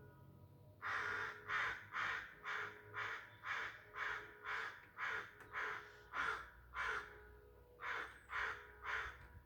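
A bird giving a long run of harsh calls, about two a second, starting about a second in, with a short break about seven seconds in.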